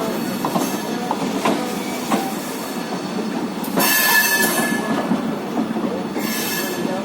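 Train running on the track, with repeated wheel clicks over the rail noise and a loud high metallic squeal from the running gear about four seconds in, then a shorter one near the end: the unusual sound the train makes as it enters the station, which had also been heard during the night.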